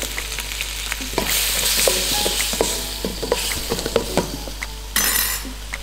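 Stir-fry sizzling in a hot stainless steel mixing bowl used in place of a wok, with repeated knocks and scrapes as the food is stirred, each knock leaving the bowl ringing briefly. The sizzle swells louder for about a second starting a second in, and again briefly near the end.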